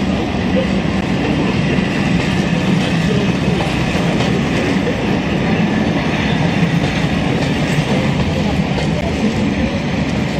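A train moving on the rails: a steady loud rumble with wheel clatter.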